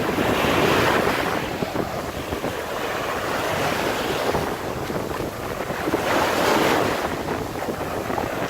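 Ocean surf breaking on a beach in big swell, with two louder surges of crashing water, about a second in and again about six seconds in, over wind rumbling on the microphone.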